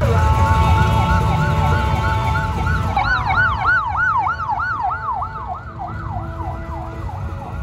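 Electronic siren on a fire-service ute: a steady high tone for about three seconds, then a fast up-and-down yelp of about three cycles a second that fades as the vehicle moves off. A low engine rumble runs underneath.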